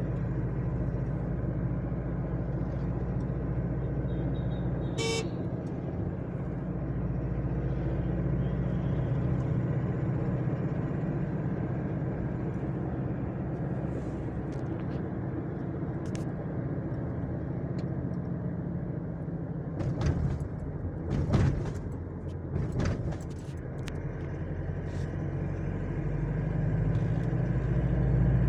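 Road vehicle running steadily, with a low engine and road rumble. A short horn toot sounds about five seconds in, and a few sharp knocks come about two-thirds of the way through.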